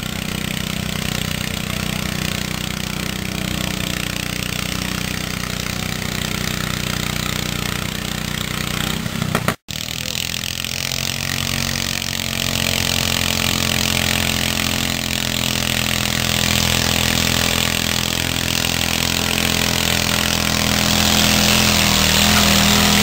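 Small garden tractor engines running steadily on a pulling track. After a sudden break about ten seconds in, one garden tractor engine runs hard under pulling load, growing louder near the end.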